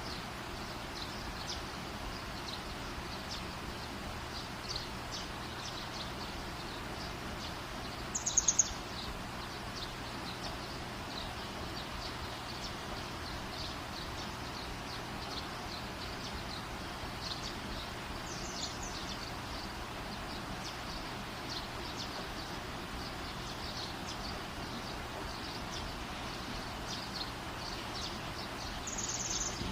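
Small birds chirping repeatedly over a steady background hiss, with a brief louder burst of sound about eight seconds in and again near the end.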